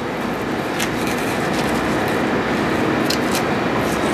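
Steady rushing noise of kitchen ventilation, with a few faint ticks from a knife cutting the breast meat off a skinned goose on a plastic cutting board.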